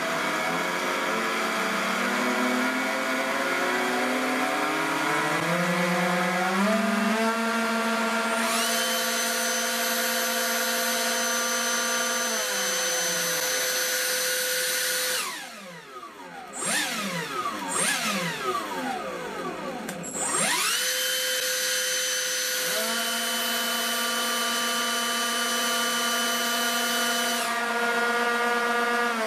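Electric motors of a radio-controlled model hydroplane run on the bench. The whine climbs in steps to a held pitch, then dies away about halfway through. For a few seconds it goes quieter, with pitches sliding up and down across one another. It then climbs again to a steady whine that falls off at the very end.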